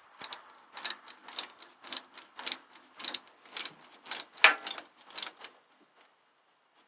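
Ratchet wrench clicking on a tractor exhaust-manifold bolt, in about ten quick strokes roughly two a second, stopping a little over five seconds in.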